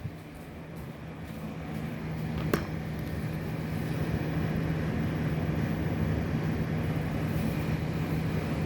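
Steady low mechanical hum at one pitch, growing gradually louder, with a single sharp knock about two and a half seconds in.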